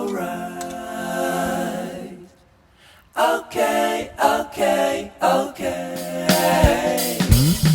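Background song with sung vocals, broken by a short pause a little over two seconds in. The full backing comes in near the end with a falling bass note.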